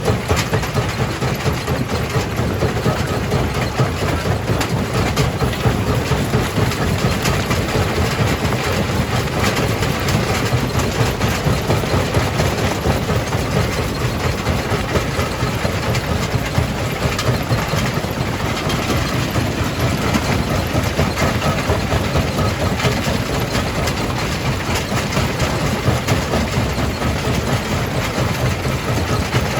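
Jaw crusher running, a steady heavy machine drone with a dense, even clatter on top.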